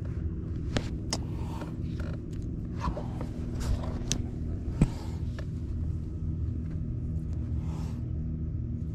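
Minn Kota electric trolling motor running with a steady low hum. Over it come scattered clicks and scrapes from the camera being handled, with one sharp knock a little before five seconds.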